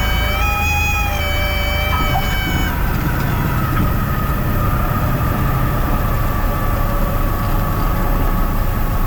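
Cockpit drone of a Piper Warrior's four-cylinder Lycoming engine, steady through the landing. Over it, a high warning tone with several pitches stepping slightly a couple of times for the first three seconds and then cutting off, typical of the stall warning horn during the landing flare.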